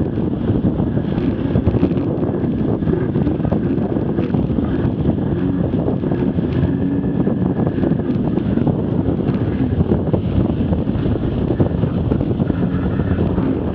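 Jet ski running at speed over open water, its engine and hull spray blended into a steady rush, with heavy wind buffeting on the microphone.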